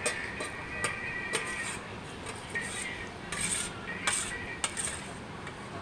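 Steel spoon scraping and clinking against an almost empty stainless-steel plate, in irregular short strokes.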